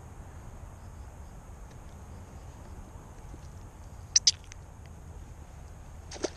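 Steady low background noise with a sharp double click about four seconds in and a single click near the end.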